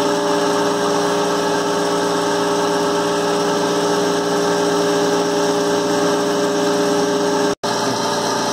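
Centrifugal tramp oil separator running at about 10,000 RPM together with its suction motor: a steady machine hum holding several fixed tones. The sound cuts out for an instant near the end.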